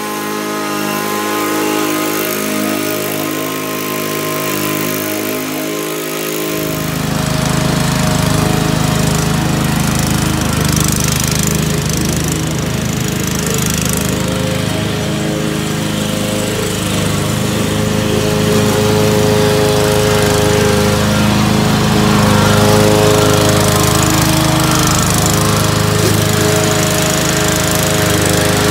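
Zero-turn riding mower running steadily while cutting grass, its engine holding an even pitch. About six seconds in the sound turns fuller and deeper.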